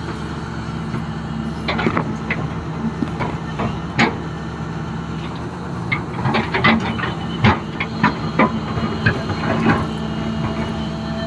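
XCMG excavator's diesel engine running steadily while rocks knock and clatter against the bucket, with the knocks coming thicker in the second half.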